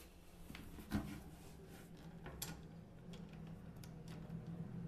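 Faint clicks and light ticks of the toilet seat's fixing nut being tightened by hand from below the ceramic bowl, with one sharper knock about a second in.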